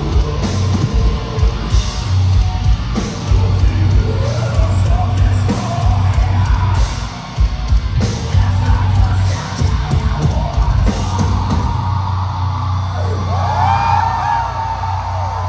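Metalcore band playing live, with heavy pounding drums and bass under yelled vocals. The low pounding drops away about twelve seconds in, and a voice holds a note near the end.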